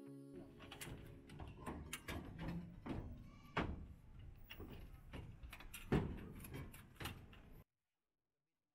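Aluminium solar mounting rail being handled and fitted onto tile-roof hooks: an irregular run of clicks and knocks, with two louder knocks about three and a half and six seconds in, over a low rumble. It cuts off suddenly near the end.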